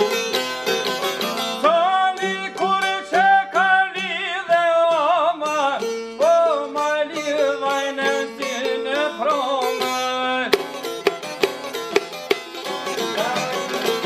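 Folk song on two long-necked plucked lutes with a man singing an ornamented, gliding melody over them; after about ten seconds the voice stops and the lutes carry on alone with brisk, sharp plucking.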